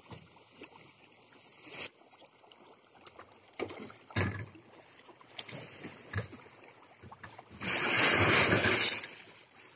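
Dry fish-feed pellets poured out of a woven plastic sack onto a concrete slab: a loud rushing pour about eight seconds in, lasting over a second. Before it come a few short rustles and knocks as the sack is handled and opened.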